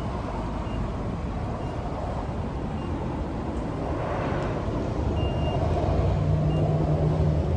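Short high electronic beeps from a self-serve car wash control panel as a wash setting is picked, one of them longer, over a steady low rumble. A steady low hum joins about five and a half seconds in.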